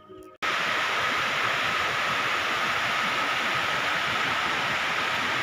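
Steady, loud rush of water from small cascades pouring over rocks at a stream crossing, cutting in sharply after a moment of guitar music.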